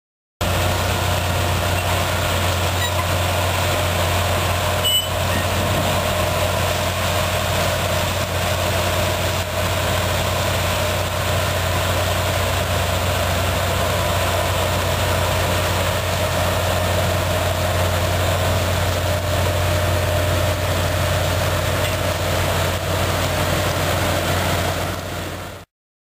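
Case tractor diesel engines and a Grimme potato harvester running steadily while lifting potatoes, with a low engine hum and a steady machine drone above it. The sound cuts in suddenly just after the start and cuts off suddenly near the end.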